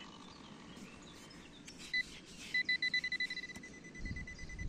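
Metal detector's target alert: one short high beep about two seconds in, then a fast run of pulsed beeps at one steady pitch, signalling a coin close by in the sand. Near the end a hand scrapes through the sand.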